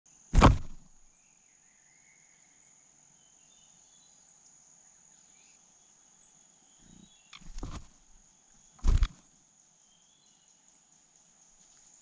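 Steady high insect trill in the background, with faint, short bird chirps now and then. Three loud, sudden thumps stand out: one right at the start, one at about seven and a half seconds and one at about nine seconds.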